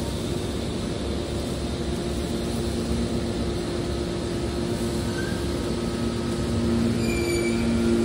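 Hydraulic scrap-metal baler running: a steady mechanical hum with a droning tone from its hydraulic pump, growing louder near the end. A brief high-pitched squeal comes about seven seconds in.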